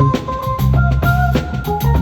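Live band playing an instrumental passage: a drum kit beat with kick and snare under bass and sustained keyboard or guitar notes.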